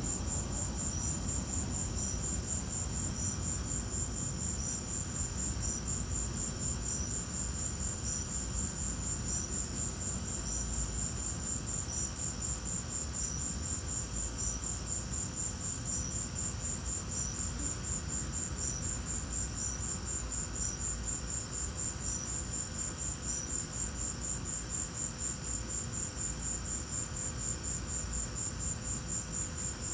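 Crickets chirping: one continuous, very fast high trill, with a second insect's short chirps about once a second.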